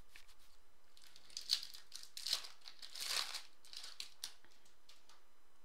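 Foil wrapper of a Topps Chrome football card pack being torn open and crinkled by hand, in several sharp crinkling bursts over about three seconds, the loudest about a second and a half in.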